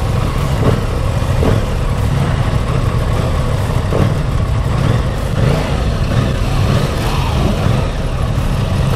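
Aprilia Tuono 660 parallel-twin engine idling steadily.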